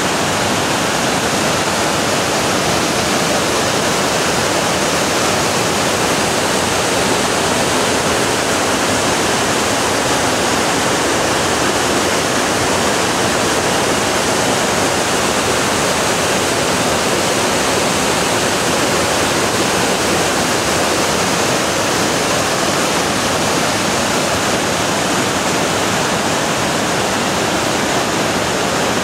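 The Roaring River's whitewater cascading over boulders at the Alluvial Fan waterfall: a loud, steady rush of falling water.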